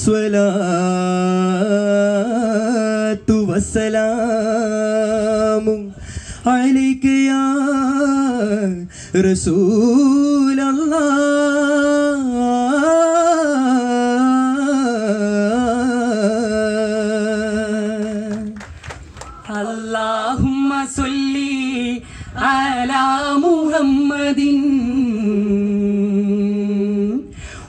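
Vattappattu singing, the Mappila song form of Kerala, performed by a men's group. A lead male voice holds long notes that waver and bend in pitch, with short breaks between phrases.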